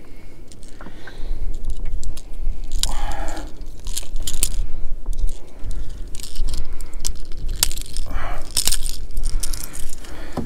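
Scattered clicks, knocks and rustles of a freshly landed fish and fishing gear being handled, over a steady low rumble.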